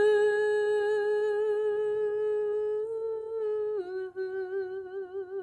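A woman's solo singing voice holding one long note, stepping down a little about four seconds in and holding the lower note with a wavering vibrato before breaking off at the end.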